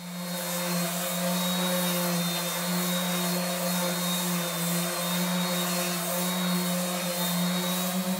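Hyper Tough electric random orbital sander running steadily with 120-grit paper on fiberglass: a continuous motor hum under the hiss of the sanding disc.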